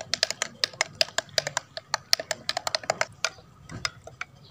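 Metal spoon clinking rapidly against the inside of a glass jug while stirring barley sattu into water; the clinks thin out near the end.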